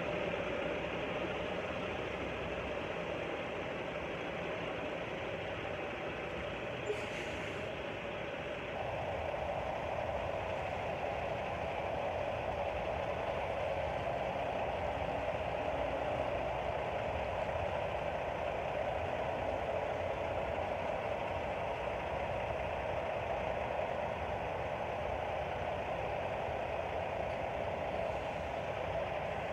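Truck engine running steadily at idle, with a single sharp click about seven seconds in and a slight rise in level about nine seconds in.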